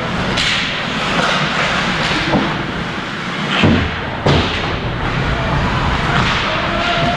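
Ice hockey in play: skates scraping on the ice, with sticks and puck making sharp knocks and thuds, the loudest about halfway through.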